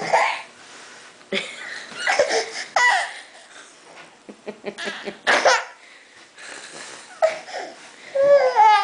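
Toddler crying in a tantrum: several loud wailing outbursts with short gaps, the last one a long falling wail near the end.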